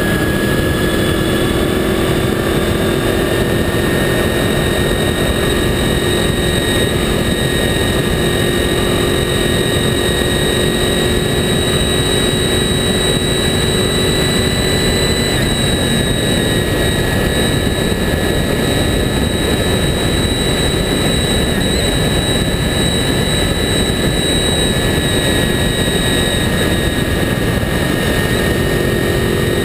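Honda VFR 800's V4 engine running at a steady road speed, heard from low beside the front wheel. Heavy wind and road rush covers a steady whine that holds nearly the same pitch throughout.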